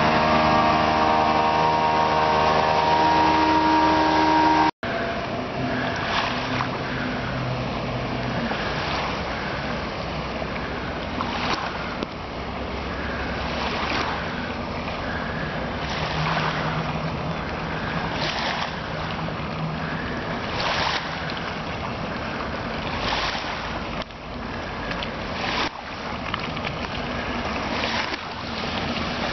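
A Johnson V4 two-stroke outboard running steadily at speed over rushing wake and hull noise, cut off abruptly about five seconds in. Then wind buffeting the microphone in repeated gusts over water noise, with a faint engine hum at times.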